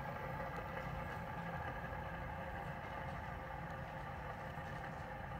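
Metal fidget ring spinners whirring steadily as they spin on hard surfaces, a continuous hum of several tones that slowly gets quieter as they wind down.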